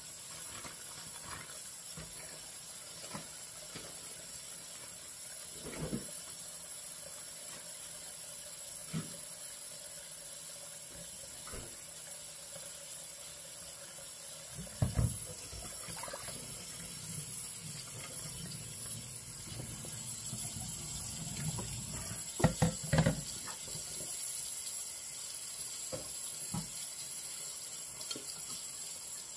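Tap water running into a stainless steel kitchen sink, with a few short knocks and clatters of things handled in the sink, the loudest about halfway through and again a little after two-thirds of the way.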